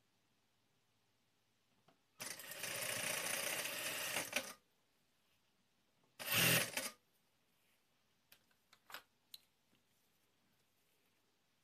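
Industrial sewing machine stitching bias binding onto knit fabric. It runs in a steady two-second burst, stops, then gives a short burst, followed by a few light clicks near the end.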